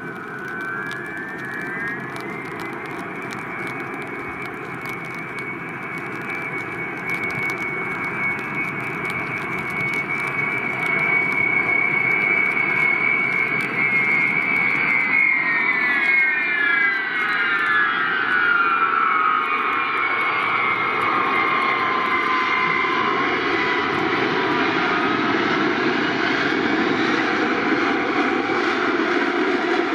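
Ilyushin Il-76TD four-engined freighter landing, its Soloviev D-30KP turbofans whining over a steady rush of engine noise. The whine climbs briefly, holds, then drops steeply in pitch about halfway through as the aircraft passes, and the engine noise grows louder from about a third of the way in.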